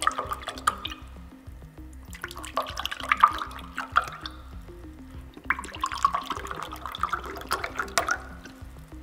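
Liquid poured from a plastic bottle into three glass tumblers in turn, splashing into the glass. The first pour ends about a second in, the second comes a couple of seconds later, and the third runs from about the middle to near the end. Background music plays underneath.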